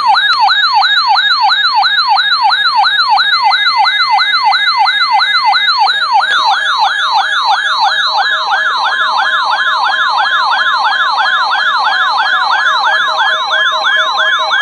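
Weather alert radios sounding their warbling alarm siren, set off by a NOAA Weather Radio required weekly test; the siren sweeps up and down about three times a second. A second siren joins about six seconds in, and a steady 1050 Hz warning alarm tone joins about eight seconds in.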